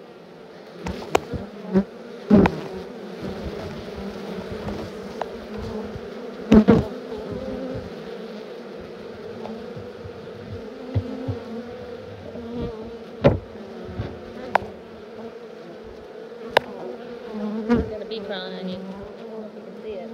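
Many honeybees buzzing steadily in a close swarm, broken by several sharp knocks, the loudest about two and a half and six and a half seconds in.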